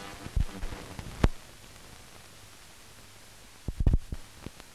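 Steady hiss of a silent newsreel film transfer, with sharp clicks and pops: a loud pop about a second in and a cluster of crackles near the end. The film carries no soundtrack, so this is only the noise of the transfer.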